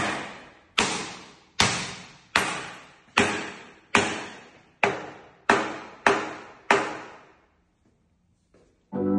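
A golf club striking a 3 mm chemically hardened glass panel about ten times, roughly once every three-quarters of a second. Each hit is a sharp crack with a short ringing decay. The glass holds and does not shatter.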